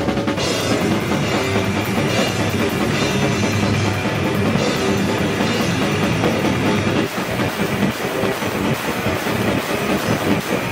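Live rock band playing loud: a drum kit played hard, with bass drum hits and cymbals up front over electric guitar.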